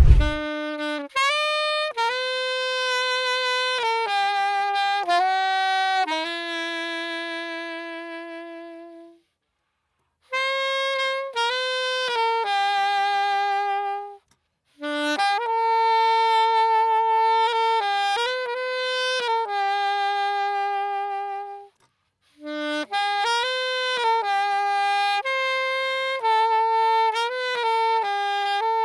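Unaccompanied solo saxophone playing a single melodic line in phrases, with short pauses between them. The first phrase ends on a long held note that fades away.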